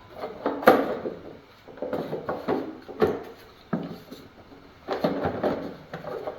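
Plastic top cover of a diesel heater being fitted onto its housing: a series of irregular plastic clacks and knocks, the sharpest near the start.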